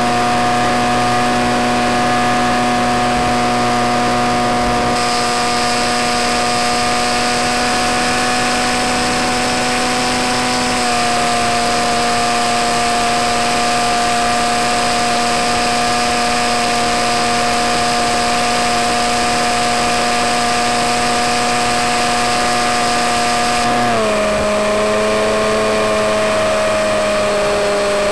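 Electric motor and propeller of a Skywalker 168 model plane running in flight, a steady whine over rushing air. Its pitch steps down about eleven seconds in and again about twenty-four seconds in as the throttle is eased back.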